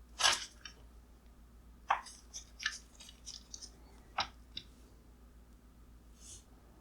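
Handling noise from the taken-apart plastic headlight parts: about eight short clicks and rustles at uneven intervals, the loudest near the start, over a faint steady hum.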